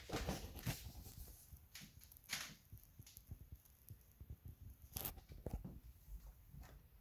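Faint handling noises: scattered light clicks and short rustles, a little louder about two and a half and five seconds in.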